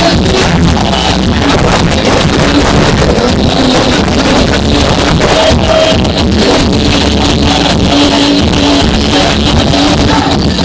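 Loud sound-system music from a carnival float's speakers, heard distorted: the microphone is overloaded by the heavy bass.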